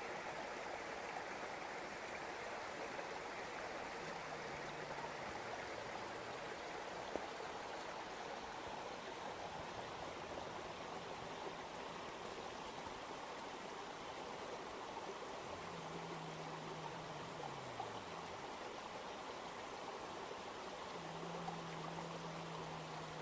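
Mountain river water rushing steadily over rocks, a continuous even rush.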